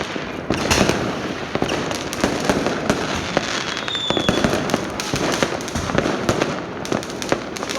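Fireworks going off in a dense, continuous barrage of rapid cracks and bangs, with a brief high whistle about four seconds in.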